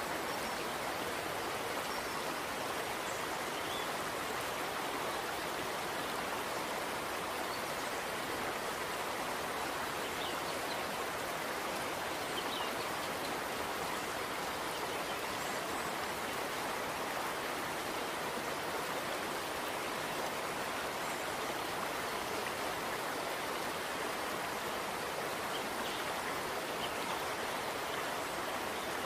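Steady rushing noise of running water, like a flowing stream, holding an even level throughout.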